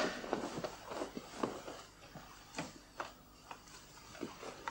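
Soft, irregular footsteps and a few light knocks as an inlaid wooden box is lifted from a desk and handled.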